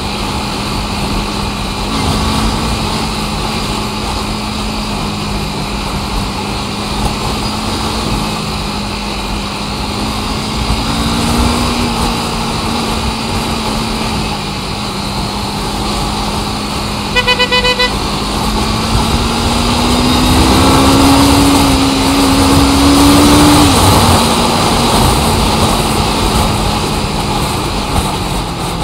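Road traffic: a vehicle engine running steadily, with a horn giving a quick burst of several short beeps partway through. A few seconds after the beeps an engine climbs in pitch as it revs up, then drops back.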